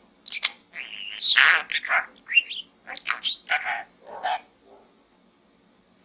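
Budgerigar chattering: a quick run of varied squeaks, chirps and warbled notes, some gliding up or down in pitch, stopping about four and a half seconds in.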